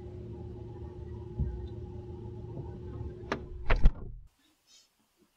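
Steady hum of a running freezer heard from inside it. A little after three seconds there are a couple of sharp knocks, and near four seconds the freezer door shuts with a thump. The sound then cuts off suddenly.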